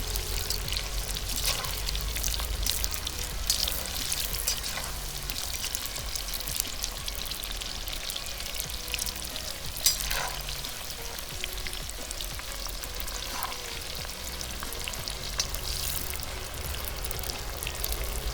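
French fries deep-frying in hot oil in a kazan: a steady sizzle with constant small crackles and pops, and one louder pop about ten seconds in.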